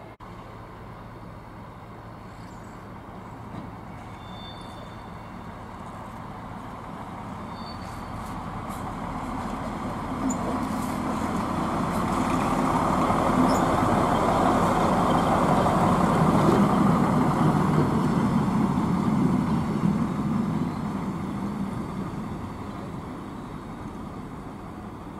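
Yellow railway works vehicle (Bauzug) passing at slow speed: its engine running and its wheels rolling on the rails. It grows louder as it approaches, is loudest around the middle of the clip, then fades as it moves away.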